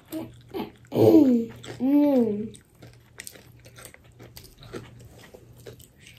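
Close-up chewing and crunching of fried chicken, with small mouth clicks throughout. About a second in, a boy hums two drawn-out 'mmm's of enjoyment, the loudest sounds here.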